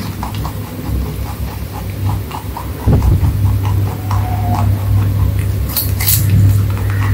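White domestic rabbit biting and chewing a hand-held slice of vegetable: quick, rhythmic crunching, several chews a second, with a few sharper bites, over a steady low hum.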